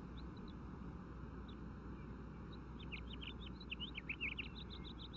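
Small birds chirping: a quick run of short, high chirps about three seconds in, with a few single chirps before it, over a faint steady outdoor hiss.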